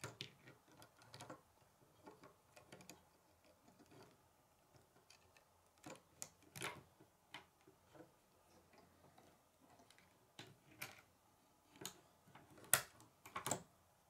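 Plastic K'nex rods and connectors being handled and snapped together, making light, irregular clicks. The loudest two come near the end.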